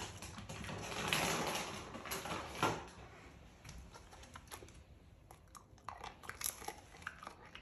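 Small dog crunching a treat: a rustling noise in the first few seconds, then scattered short, sharp clicks and crunches.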